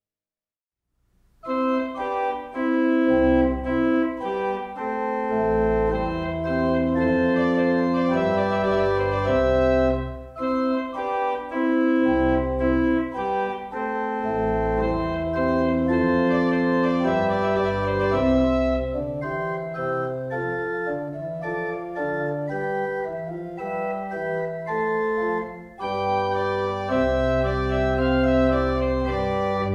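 Two-manual church organ playing a piece of sustained chords over deep bass notes, beginning about a second and a half in.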